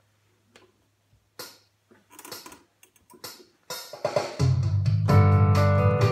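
Electronic keyboard: a few scattered knocks and short sounds, then about four seconds in the player starts, chords over a strong low bass.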